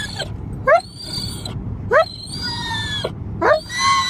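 Dog whining and screeching in excitement, in a repeating cycle roughly every second: a quick rising yelp, then a long high-pitched whine. Steady low road rumble from the moving car runs underneath.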